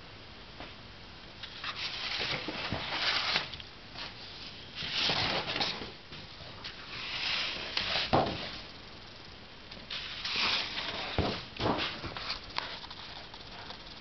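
Intermittent rustling and handling noise in short bursts of about a second each, with a few light clicks between them.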